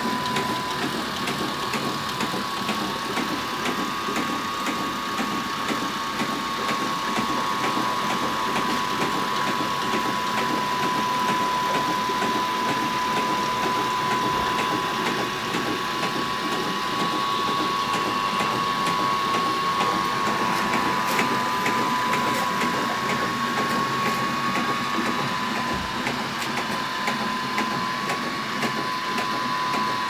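Working wooden model of a water-powered sawmill running: a steady, fast rattling clatter of its wooden mechanism with a constant whine over it.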